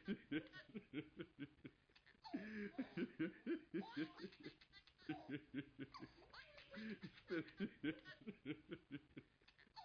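Faint laughter in several bouts of quick, short pulses, about four a second, with brief pauses between bouts.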